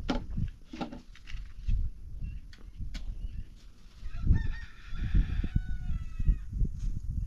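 A rooster crowing once, about four seconds in: one drawn-out crow of about two seconds that falls in pitch at the end.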